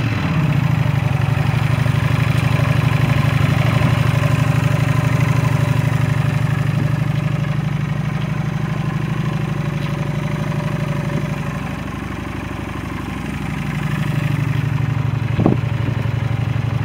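2016 Honda Shadow Phantom's 745 cc V-twin idling with a steady, even pulse. It is briefly quieter about twelve seconds in, and there is a single short click near the end.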